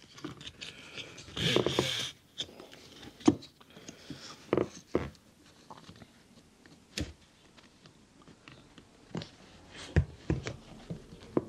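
Scattered clicks, knocks and scrapes of plastic interior trim being handled as a seatbelt guide is fitted, with a short rustling burst about a second and a half in.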